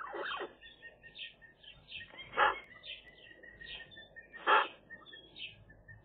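Eurasian magpies calling in the nest. Short high chirps come about two to three a second, and two louder, short harsh calls stand out, one about two seconds in and one about four and a half seconds in.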